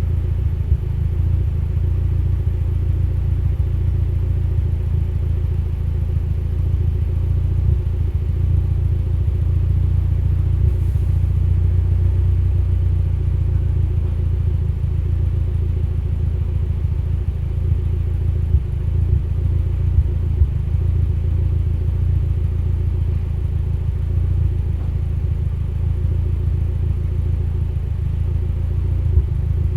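Mitsubishi Lancer Evolution X's turbocharged 2.0-litre four-cylinder engine idling with a steady low rumble and a few brief stumbles, the misfire that the owner puts down to a lean idle.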